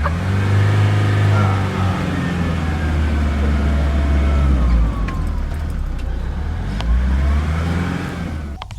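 Safari vehicle's engine revving hard under load while driving through ground where vehicles often get stuck, its pitch rising and falling, before cutting off suddenly near the end.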